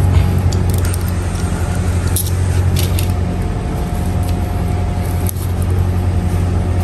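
A steady low engine drone, with a few sharp clicks from hand tools working stranded cable about two and three seconds in.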